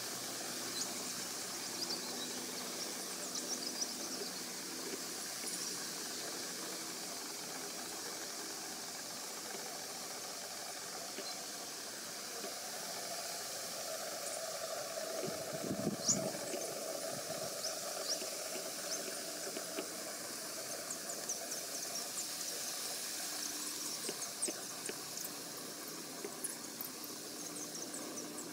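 Steady outdoor background hiss with faint, scattered high-pitched ticks and chirps; a low rumble swells briefly around the middle.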